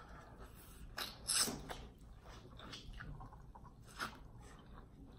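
A person biting into boiled corn on the cob and chewing, close to the microphone: a few separate bites, the loudest about a second in and another near four seconds.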